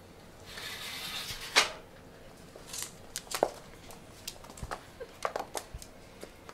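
Kitten playing with a small toy ball on a wooden floor: a scratchy scuff about half a second in, a sharp knock, then a scatter of light taps and clicks as it scrambles after the ball.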